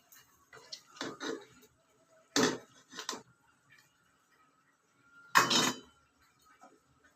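Kitchenware clattering: dishes and utensils knocking together in four short bursts, the loudest a little past five seconds in.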